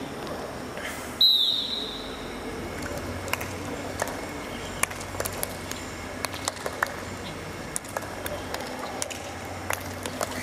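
A short, high whistle about a second in, then scattered sharp hand claps from a group doing clap push-ups on grass, one or two claps a second and out of step with each other.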